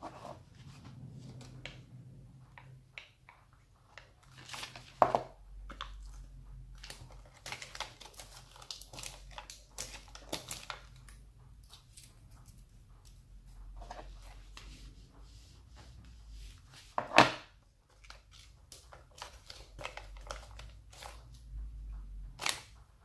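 Decorative wrapping paper crinkling and rustling as it is handled and folded around a cylinder, in irregular crackles with a few sharper, louder ones about five seconds in and again about two-thirds of the way through.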